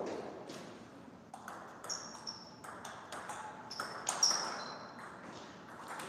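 Table tennis ball being hit back and forth: a string of sharp pinging clicks off the paddles and table at an irregular pace, the loudest about four seconds in.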